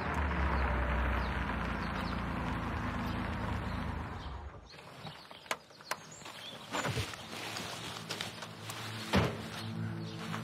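Classic air-cooled Porsche coupe's engine running steadily as the car rolls in, then switched off about four and a half seconds in. A few sharp door clicks and thunks follow as the driver gets out.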